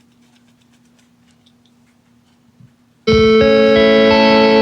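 A faint low hum with scattered light clicks, then about three seconds in a loud electronic chord starts suddenly. Its notes enter one after another in quick steps and are held steady: an old Macintosh computer's system sound played through a Logitech Z906 speaker system.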